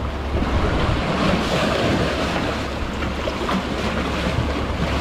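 Seawater surging and sloshing in the gaps between concrete tetrapod blocks, a steady wash that swells a little in the first couple of seconds, with wind buffeting the microphone.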